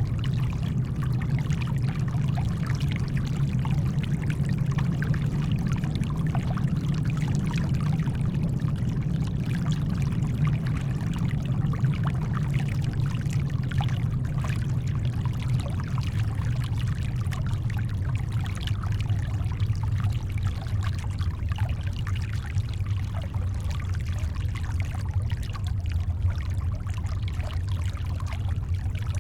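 Steady brown noise, deep and even, blended with the faint sound of shoreline water.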